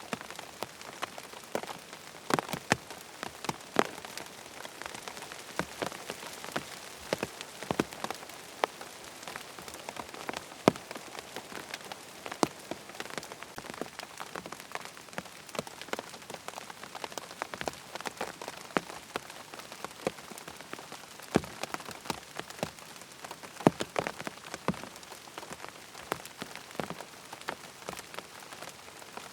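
Steady rain falling on a tent, an even hiss with many sharp, irregular drops tapping on the fabric.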